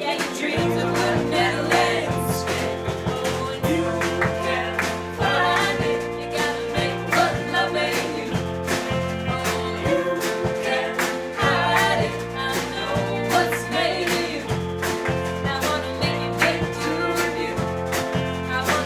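A band playing live: drum kit keeping a steady beat, two electric guitars and a Nord Electro 2 keyboard, with singing over them.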